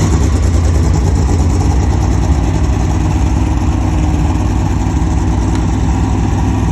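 Ford EF Falcon engine idling steadily, with a low, even hum. The car had not been started in months.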